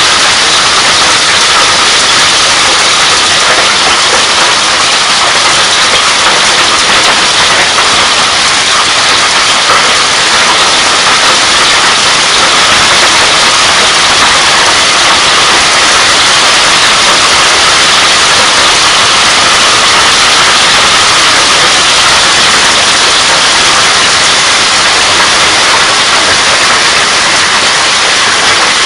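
Hailstorm with heavy rain pelting down: a loud, dense, steady hiss of hailstones and rain striking the ground.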